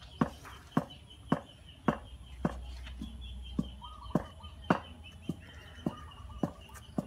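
A steady beat of sharp knocks, a little under two a second, with a faint high steady tone behind it.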